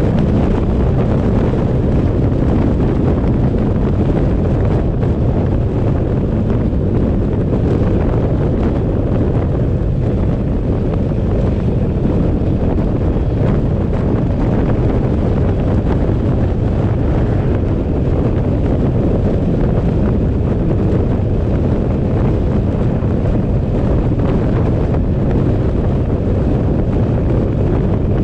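Steady wind rumble on the microphone of a camera riding on a moving vehicle, mixed with road and engine noise from the vehicle driving along.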